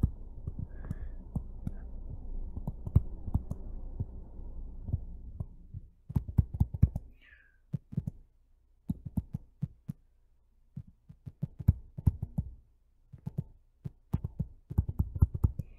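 Stylus tapping and scratching on a tablet screen while an equation is handwritten: clusters of short sharp clicks with pauses between them, over a faint low hum that stops about six seconds in.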